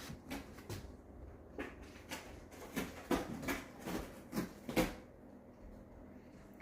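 A new toaster oven air fryer being handled: a string of light knocks and clatters, a dozen or so, that stop about five seconds in.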